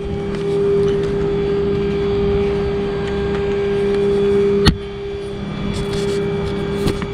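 Cesspool pumping truck's engine idling with a steady hum. A single sharp knock about two-thirds of the way through.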